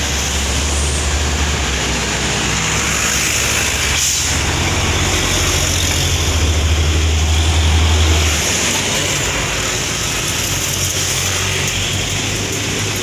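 Road vehicle noise: a deep engine rumble over steady road and wind noise. The rumble drops away about eight seconds in.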